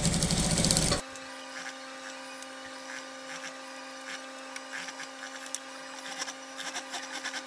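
Industrial sewing machine stitching in a quick, rapid burst that stops abruptly about a second in. After it, a steady electrical hum with scattered light clicks and rustles from handling the fabric.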